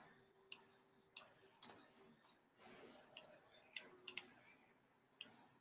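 Near silence broken by about eight light, sharp clicks at irregular intervals, with a faint steady hum through the first couple of seconds.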